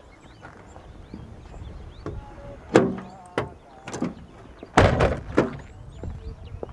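A car door being opened and slammed shut. There are several clunks and knocks, with the heaviest slam about five seconds in.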